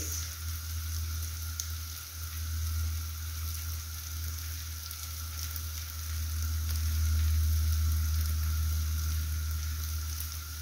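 Chopped vegetables and fresh fenugreek leaves frying in oil in a pan, a steady sizzle, over a steady low hum.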